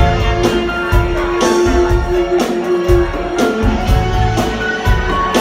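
Live band playing a yacht-rock song: guitar over drums, bass and keyboards, with a long held note in the first half and a steady beat.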